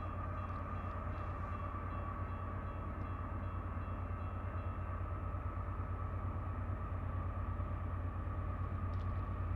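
Approaching diesel freight train led by a GE AC4400CW locomotive: a steady low engine rumble with a constant higher hum, growing slightly louder near the end.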